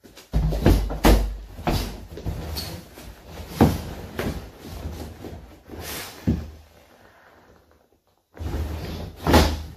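Heavy punching bag lying on the floor, thudding as it is struck and knelt on in ground work. A quick run of heavy hits over the first six seconds or so, a lull, then another burst of hits near the end.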